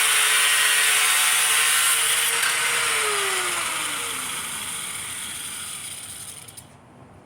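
Power tool cutting steel, most likely an angle grinder with a cutoff wheel, running at full speed with a loud hiss. About three seconds in its motor whine starts falling in pitch as it spins down, fading out near the end.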